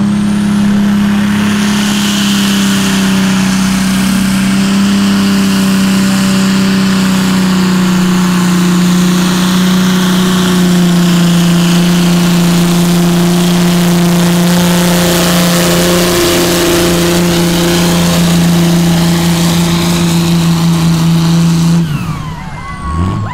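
Diesel pulling tractor's engine at full throttle, hauling a weight-transfer sled down the track. The loud, steady engine note sags slightly in pitch a couple of times as the sled's load builds, then cuts off sharply near the end.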